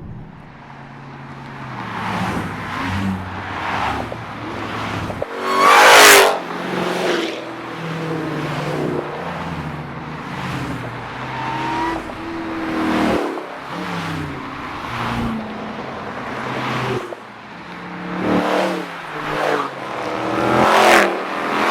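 V8 muscle cars driving past one after another, engines rising and falling in pitch as each goes by. The loudest pass comes about six seconds in, with another loud one near the end.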